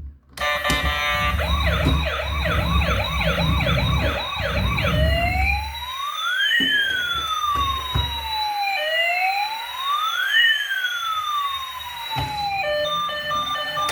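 Electronic siren of a toy emergency vehicle: a fast warbling yelp for about five seconds over a low rumble, then two slow rising-and-falling wails. Near the end it switches to a tune of steady beeping notes.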